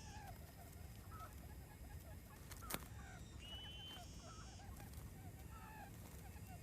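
Quail calls: many short, faint chirps, with a longer steady call sounding twice, about four seconds apart. One sharp click comes near the middle.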